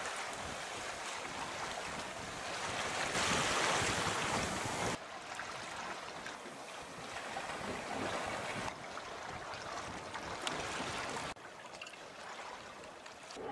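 Wind rushing over the microphone with water noise beneath it, a steady hiss. It swells louder about three to five seconds in and drops or shifts abruptly several times.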